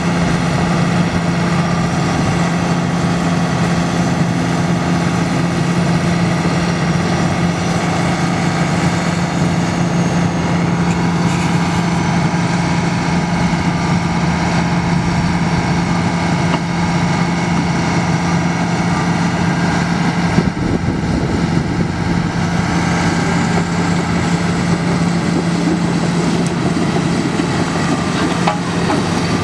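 Komatsu 11-litre six-cylinder turbo diesel engine of a 2006 Komatsu PC400LC-7 excavator running at a steady speed, its note holding one pitch throughout.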